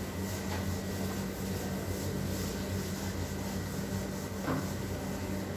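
A steady low hum throughout, with faint swishes of a duster wiping a chalk blackboard and a single light knock about four and a half seconds in.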